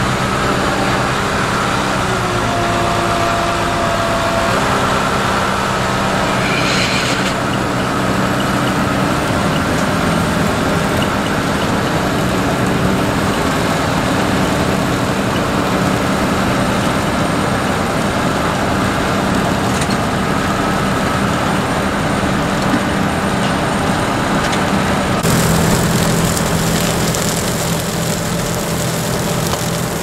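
Grimme Varitron 470 self-propelled potato harvester running steadily while lifting potatoes, its engine hum mixed with the noise of its digging and elevating machinery. About 25 seconds in, the higher part of the sound grows suddenly louder and brighter.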